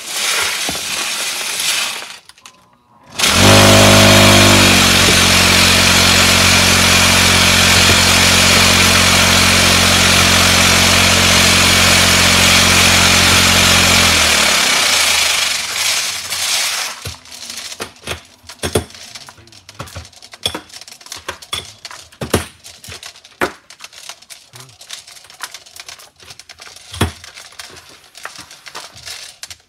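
A motor-driven machine starts up about three seconds in and runs loudly and steadily with a hum and a rattling hiss for about ten seconds, then winds down. Loaded cartridges follow, clinking now and then as gloved hands pick through them in a wooden tray.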